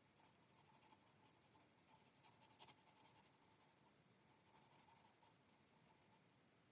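Faint, continuous scratching of hand abrasion on a rusted steel knife blade, the rust being rubbed off, with a faint steady high hum underneath.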